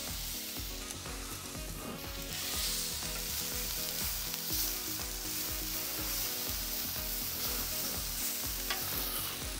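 Sliced onions and mushrooms sizzling in rendered beef fat on a hot plancha, stirred and turned with a spatula. Quiet background music with a steady beat runs underneath.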